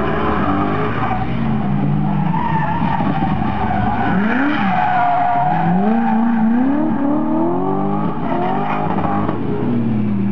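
A BMW E30's engine revving up and down again and again as the car slides sideways, its rear tyres squealing and smoking on the asphalt. The squeal is loudest about two and a half and five seconds in.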